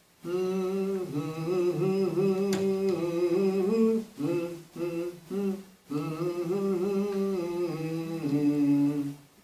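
A man humming a slow tune with his mouth closed: a long phrase of held notes, a few short notes about four to six seconds in, then a second long phrase.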